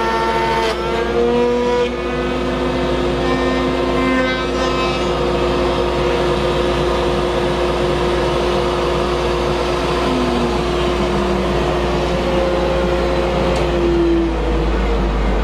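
Table-mounted router running at speed while routing a pen channel into a wooden pen-case blank. Its whine dips in pitch about half a second in as the bit takes the cut, then recovers, over a steady low rumble.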